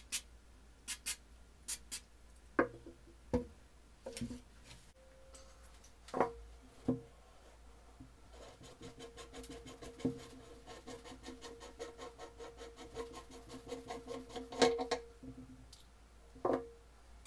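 A few short hisses from a spray can aimed at an old metal hand drill, then metal clunks as the drill's parts are handled. In the middle, a fast run of rattling clicks as the drill's chuck is turned and unscrewed.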